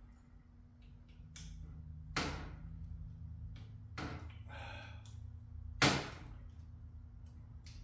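A handful of sharp metal knocks and clanks from hand tools working bolts on a motorcycle transmission case as they are snugged down, the loudest about six seconds in, over a steady low hum.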